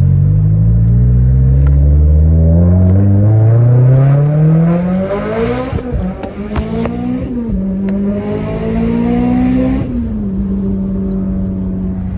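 Mitsubishi Lancer Evolution X's turbocharged 2.0-litre four-cylinder engine under a hard full-throttle pull. The pitch climbs steadily, drops abruptly at gear changes twice, climbs again, then falls back and holds a steady note near the end.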